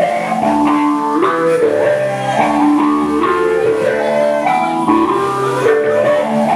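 Live stoner rock band playing: electric guitar and bass guitar on a riff of held notes that step up and down in pitch.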